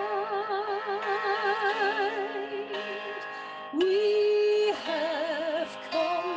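A woman singing a hymn, holding long notes with a wide vibrato; a louder new phrase starts about four seconds in.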